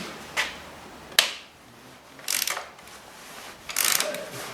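Hand tools being worked on the motorbike: a couple of sharp metallic clicks, then short scraping, rattling bursts.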